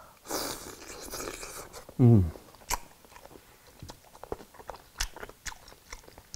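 A man biting into a soft minced-pork meatball with a breathy hiss of air for about a second, then a short, loud hum from the throat that falls in pitch about two seconds in, followed by chewing with wet mouth clicks and smacks.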